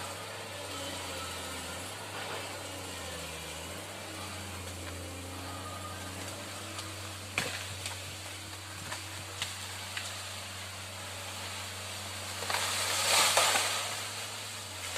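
Excavator's diesel engine running steadily, dipping briefly about three seconds in, with a few sharp knocks in the middle and a louder rushing noise lasting about a second and a half near the end.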